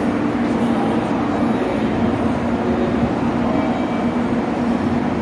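JR Kyushu 813 series electric train standing at the platform, its onboard equipment giving a steady hum over a constant hiss.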